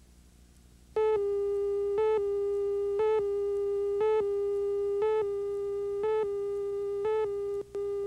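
Slate countdown tone before a broadcast commercial: a steady electronic tone that starts about a second in and rises into a short, louder blip once every second, marking the count. It has a brief break near the end.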